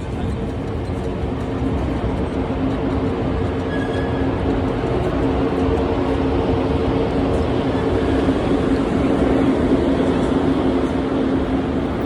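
Berlin S-Bahn electric train moving through the station, a steady hum with two held tones that comes in about a second and a half in and grows louder toward the end.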